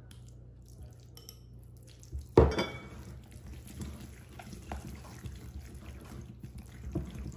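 A hand wire whisk beating egg yolks into a thick flour paste in a cut-glass bowl, its wires clinking and scraping against the glass in quick irregular ticks. A single sharp knock about two and a half seconds in is the loudest sound, just before the whisking starts in earnest.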